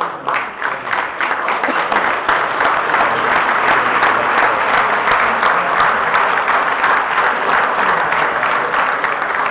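A roomful of people applauding: many hands clapping together, building over the first couple of seconds and then holding steady.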